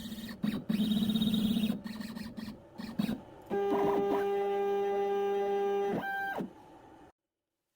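A CNC router's motors whining in short stop-start runs, then one steady pitched whine for about two and a half seconds that stops with a brief falling tail.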